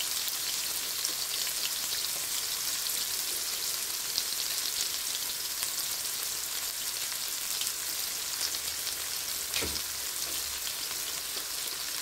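Chopped red onion sizzling in olive oil in a nonstick frying pan: a steady hiss dotted with small crackles. There is one soft knock about ten seconds in.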